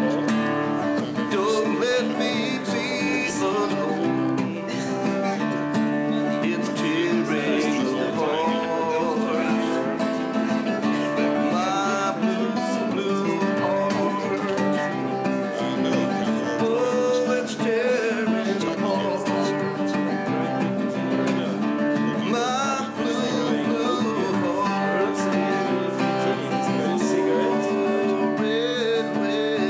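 Music led by acoustic guitar, playing steadily.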